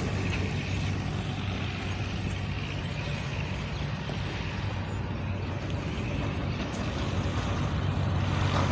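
Tractor engine running steadily, a low drone that grows a little louder near the end.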